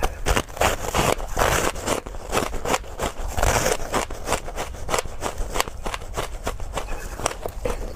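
Hard frozen purple ice being bitten and chewed: a rapid, irregular run of crackling crunches, busiest about a second in and again about three and a half seconds in.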